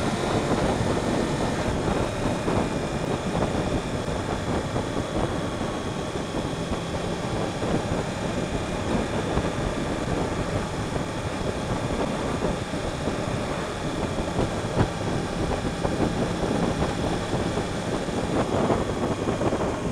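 Motorcycle cruising at a steady road speed: wind rush and road noise over the onboard microphone, with the 2015 Yamaha R1's crossplane inline-four engine running steadily underneath.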